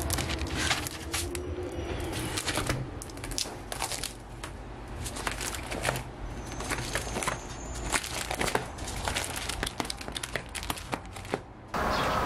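Packaging crinkling and rustling as it is handled, uneven, with many small sharp clicks.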